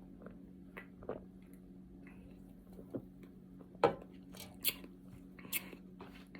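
A person drinking soda from a can: a series of soft gulps and mouth clicks, the loudest about four seconds in, over a low steady hum.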